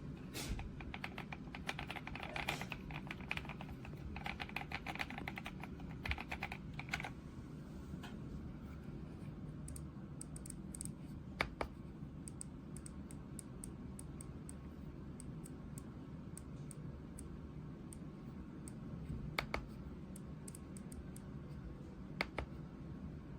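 Typing on an RK Royal Kludge S98 mechanical keyboard with tactile switches and PBT keycaps. A fast run of keystrokes for about the first seven seconds thins out into slower, scattered key presses.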